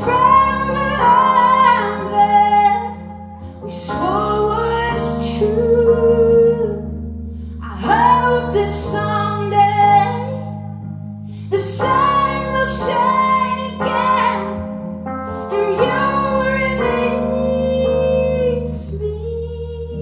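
A woman singing a slow melody in phrases that start about every four seconds, over held keyboard chords.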